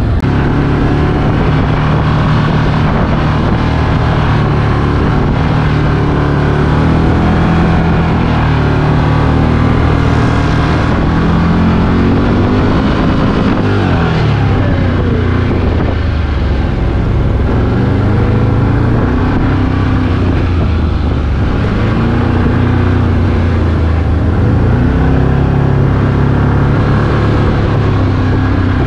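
Side-by-side off-road vehicle's engine running while driving over sand, heard from inside the cab. Its pitch rises and falls with the throttle, dropping and climbing again about halfway through.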